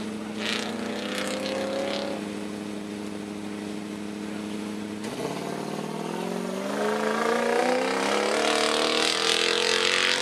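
Land Rover-bodied comp safari 4x4's engine idling steadily, then about halfway through revving up and pulling away, its pitch climbing as it accelerates.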